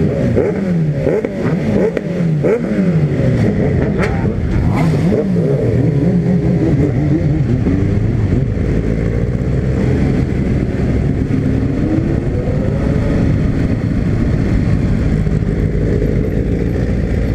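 Motorcycle engines revving and accelerating in a group ride, pitch rising and dropping through gear changes again and again for the first several seconds, then running steadier.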